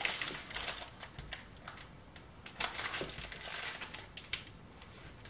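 A crisp baked cheese crust being cut through on baking paper over a baking tray: irregular scraping and crunching strokes with paper rustling, as the base refuses to cut through cleanly.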